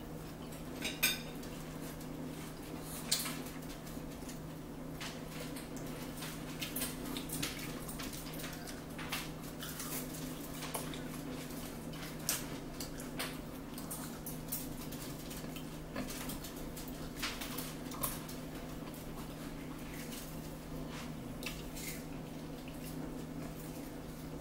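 Metal forks clinking and scraping on dinner plates during a meal: scattered light clicks every second or two, over a steady low hum.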